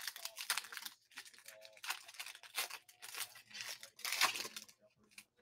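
A foil trading-card pack torn open by hand and its wrapper crinkled, in a run of ripping and crackling bursts, the loudest about four seconds in.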